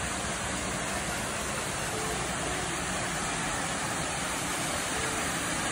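Waterfall rushing, a steady, even noise of falling water.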